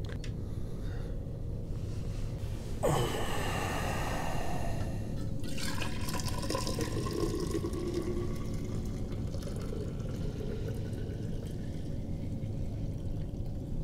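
Hot coffee poured from a stainless steel camp pot into a stainless vacuum-insulated bottle, splashing into the bottle as it fills. The pour starts suddenly about three seconds in.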